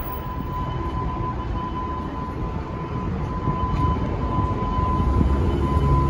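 City street traffic noise with a low engine rumble that grows louder toward the end, and a thin, steady high-pitched tone throughout.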